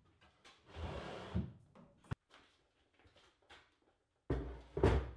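Plywood cabinet frames and a miter saw being shifted on a plywood countertop: a sliding scrape about a second in that ends in a knock, a sharp click a moment later, then two heavier thumps near the end.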